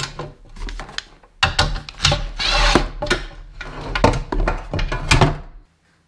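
Hand tools and metal parts handled on a wooden workbench: a run of irregular clicks and knocks, with a brief scraping hiss a little after two seconds, over a low steady hum.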